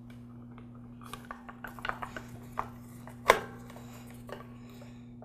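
Plastic pressure-switch cover being fitted and its screw turned in with a screwdriver: scattered light clicks and scrapes, the loudest about three seconds in, over a faint steady hum.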